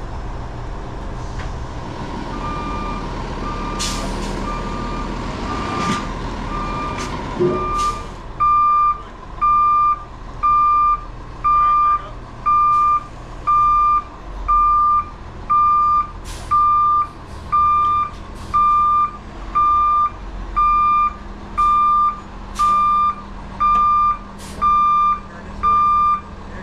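Backup alarm beeping about once a second, faint at first and loud from about eight seconds in, over a heavy diesel engine running. A few sharp clicks come in the first eight seconds.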